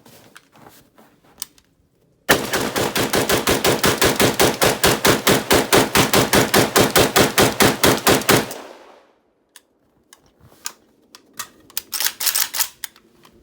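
Zastava ZPAP M92 AK in 7.62x39 fired rapidly in semi-auto, about thirty shots at roughly five a second, emptying the magazine. The reports die away after the last shot. Near the end there is a short run of lighter clicking and rattling.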